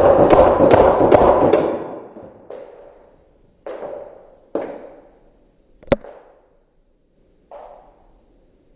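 Cybergun Desert Eagle CO2 airsoft pistol firing: a loud rapid full-auto burst, then about five single semi-auto shots a second or so apart, each with a trailing decay.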